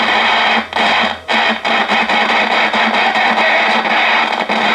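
1963 Sony TR-6080 six-transistor AM radio's speaker giving out loud hiss and static with a low hum, cutting out briefly twice about a second in. The crackly dropouts point to a dirty volume control.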